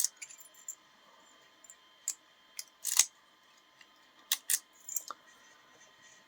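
Small lock parts and packages being handled on a table: a scattering of light clicks and taps, the loudest about three seconds in.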